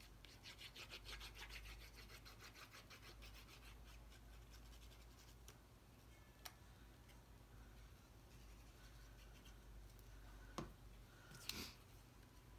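Faint quick scratching and rubbing of cardstock, many strokes a second for the first few seconds, as a paper piece is glued. A few light taps and paper rustles follow near the end as the piece is handled.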